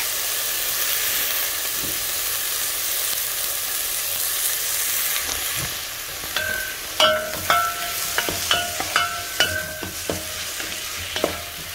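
Sliced onions sizzling in hot oil in a metal pot. About halfway through, a metal spoon starts stirring them, knocking against the pot in a run of ringing clinks.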